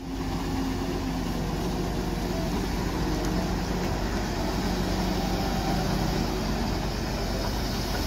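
Hyundai wheeled excavator's diesel engine running steadily as the machine digs soil and swings loads into a dump truck.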